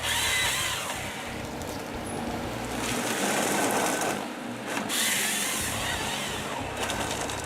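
Sampo Rosenlew forestry harvester with a Kesla harvester head at work: steady machine noise, with a high whine near the start and again about five seconds in.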